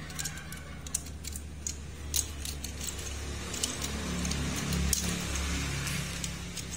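Small plastic clicks and snaps, scattered irregularly, as a plastic jet-to-robot transforming toy is folded and its parts pressed into place by hand, over a low steady rumble.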